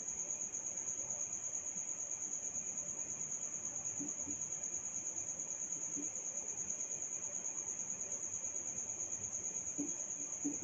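A cricket chirping steadily in the background: a continuous high trill with rapid, even pulses.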